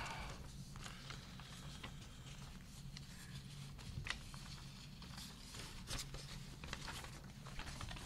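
Faint rustling and shuffling of paper sheets being handled, with scattered soft clicks over a steady low room hum.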